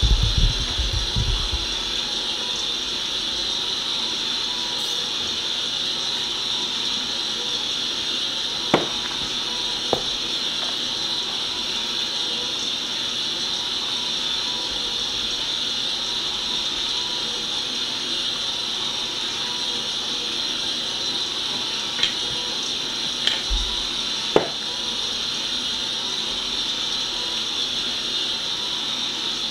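4moms mamaRoo baby swing running empty, its built-in speaker playing a steady white-noise hiss. There are a few low thumps about a second in and scattered short clicks later on.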